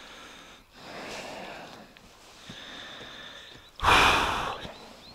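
A person breathing close to the microphone: a few soft breaths in and out, then one much louder, sharp exhale or snort about four seconds in.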